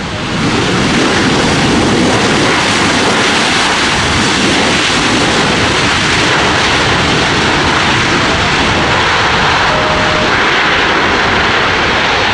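Twin CFM56-7B jet engines of a Boeing 737-800 running at high power as the airliner rolls down the runway, a loud steady roar that swells sharply about half a second in.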